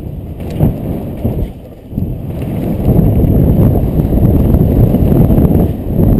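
Wind buffeting a helmet-mounted camera's microphone on a fast mountain-bike run down a dirt track: a loud, low rumble that eases off briefly about two seconds in, then builds back up.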